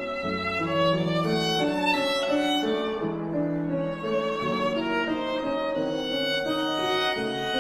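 Background music: bowed strings playing a flowing melody over sustained lower notes.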